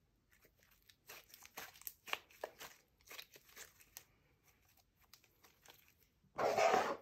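Thick slime being stretched, folded and squeezed by hand, giving soft irregular crackles and squishes, with a louder, longer crackle shortly before the end.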